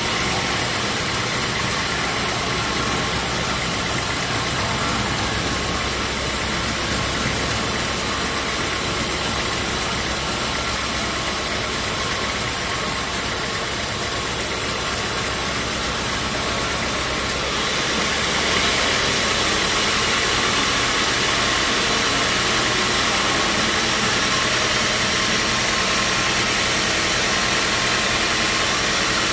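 Sawmill machinery running steadily, a loud, even mechanical noise that shifts abruptly in tone about two-thirds of the way through.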